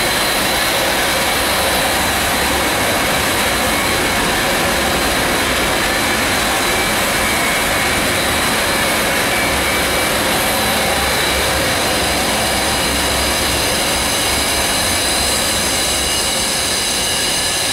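Loud steady roar of a natural-gas-fired steam boiler room, the burners firing and the combustion-air draft fans running, with a few faint steady whines on top.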